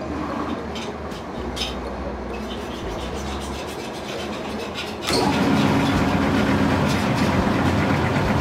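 Motorised dough-roller machine with steel rollers, giving a steady low hum with a few light knocks as dough is handled on its bed. About five seconds in it suddenly gets louder as the rollers start turning.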